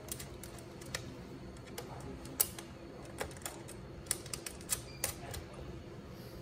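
Irregular small clicks and taps of hands fastening a crimped ground wire and its nut onto the metal chassis of an oxygen concentrator, with the loose wires knocking against the frame; the sharpest click comes about two and a half seconds in.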